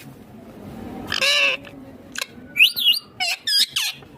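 Indian ringneck parakeet calling: a harsh squawk about a second in, then a rapid run of short, sharp calls that swoop up and down in pitch.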